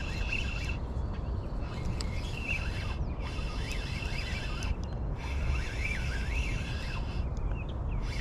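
Fishing reel being cranked in spurts while reeling in a hooked smallmouth bass, its gears whirring and pausing briefly several times. A steady low rumble of wind and some bird chirps sit underneath.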